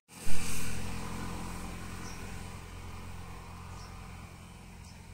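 A motor vehicle passing on a nearby road, loudest about a third of a second in and then fading away steadily, over a low engine hum. A few faint, short high chirps sound now and then.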